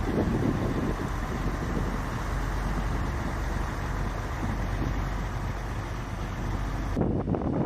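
Heavy armoured vehicle's engine running steadily, changing abruptly about seven seconds in.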